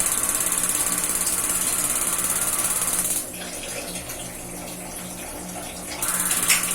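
Water running from a tap fed by a gas water heater. The flow stops about three seconds in and starts again near the end.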